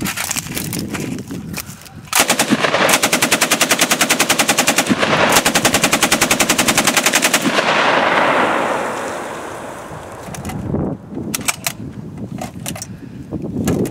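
Soviet DP-28 light machine gun in 7.62x54R firing full auto from the shoulder: two long rapid bursts with a brief break between them, the report rolling away for a couple of seconds after the last shot.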